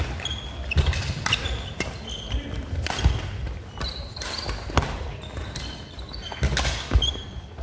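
Badminton rackets striking a shuttlecock in a doubles rally, several sharp cracks with trainers squeaking and thudding on the wooden court floor, ringing in a large sports hall.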